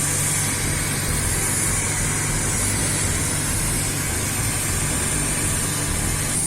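Steady low hum of running heavy machinery, with a high hiss above it.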